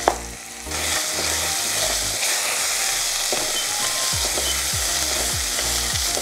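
Onions, green chillies and ginger-garlic paste sizzling in hot oil in a steel pressure cooker while a silicone spatula stirs them; the sizzle grows louder about a second in. Soft background music plays underneath.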